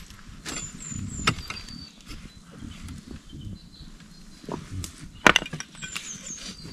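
A pickaxe striking into packed soil and stones: a few scattered dull strikes, two of them close together about five seconds in, with scraping of earth between.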